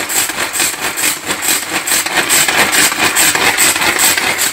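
Kitchen herb chopper chopping fresh parsley and basil: a loud, fast and even chopping rattle that stops abruptly at the end.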